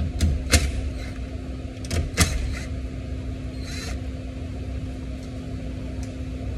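Cordless drill with a 10 mm socket running in short spurts to loosen bolts on a car door frame, with a few sharp clicks of the socket and metal in the first couple of seconds, over a steady low hum.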